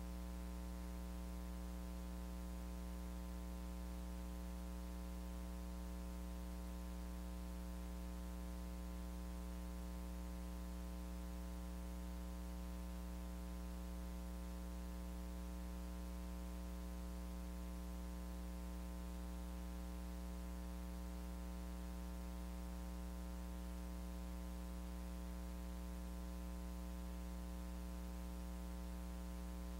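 Steady electrical mains hum, buzzy with many overtones, over a constant hiss, unchanging throughout with no other sound.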